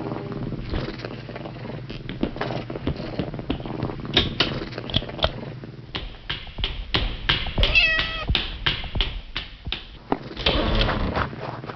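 A cat meows once, a short bending call about eight seconds in, among scattered knocks and clicks.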